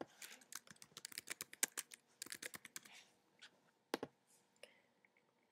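Quiet typing on a computer keyboard as a login username and password are entered: a quick run of key taps for about three seconds, then a few separate clicks.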